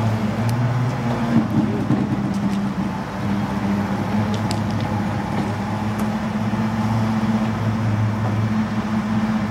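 Heavy-haulage low-loader's diesel engine running steadily with an even low hum, a couple of light clicks about halfway through.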